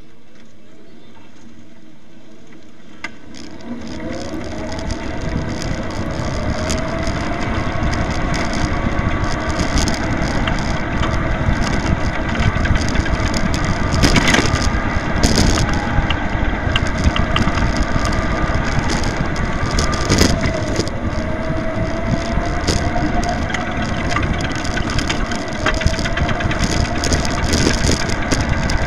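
Onboard sound of an electric go-kart pulling away and driving around an indoor track. After a quiet few seconds a loud rattling rumble from the chassis and tyres on concrete builds, full of sharp knocks, with a faint whine that rises and falls as the kart speeds up and slows.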